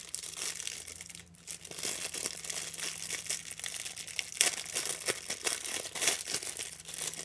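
Packaging crinkling and rustling as a small item is unwrapped by hand, with irregular sharp crackles and a brief lull a little over a second in.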